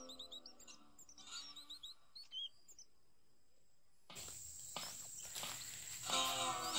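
Forest birds chirping over the tail of fading acoustic guitar music; about four seconds in, outdoor ambience cuts in with a steady high insect whine and some rustling, and the guitar music comes back near the end.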